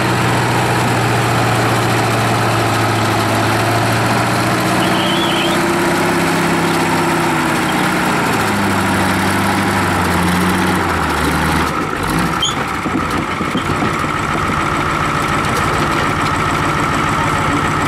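Oliver 2255 tractor's Caterpillar 3208 V8 diesel running hard under load, pulling a weight sled. Its pitch climbs, then sinks over several seconds as the tractor slows. About twelve seconds in it is throttled back and settles into a steady idle.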